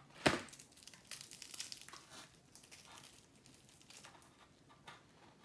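Crispy-skinned whole fried chicken being torn apart by hand: a sharp crack about a quarter second in, then scattered crackling of the crisp skin and rustling of the paper lining beneath it.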